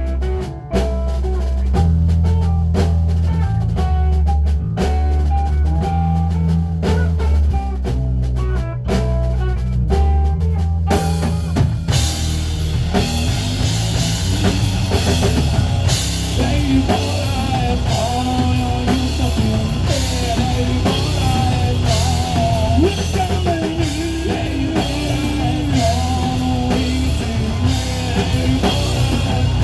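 Rock band playing an instrumental passage on drum kit, bass and guitar. About 11 seconds in, the playing becomes fuller and brighter, with cymbals washing over it.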